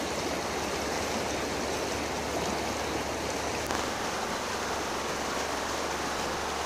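Steady rush of a flowing river, an even hiss that does not change.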